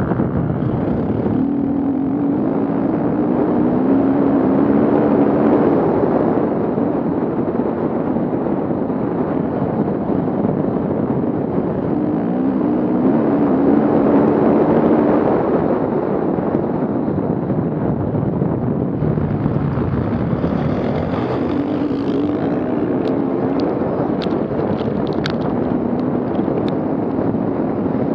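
Off-road vehicle engine running under load, revving up three times, with wind noise on the microphone. A short run of sharp knocks comes about three-quarters of the way through.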